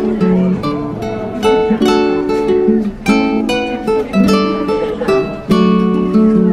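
Background music on a plucked acoustic guitar, picking a string of single notes over chords.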